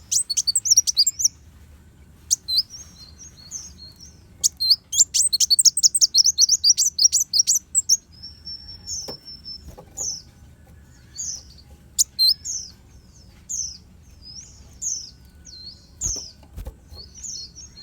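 Kolibri wulung sunbird singing: fast, high-pitched twittering trills in the first half, then a run of separate sharp sweeping notes about one a second.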